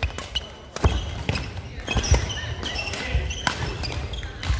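Badminton rally: sharp racket strikes on the shuttlecock, several in a few seconds, mixed with thuds of footfalls and short squeaks of players' shoes on the wooden court floor.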